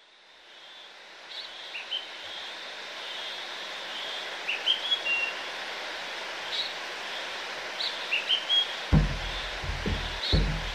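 Rainforest ambience fading in: a steady hiss with birds chirping and giving short whistled notes every second or so. Deep rhythmic beats come in about nine seconds in.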